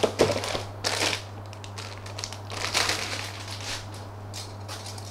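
Plastic bag of model-kit parts crinkling and rustling as it is handled, in irregular bursts, heaviest in the first second and again around three seconds in.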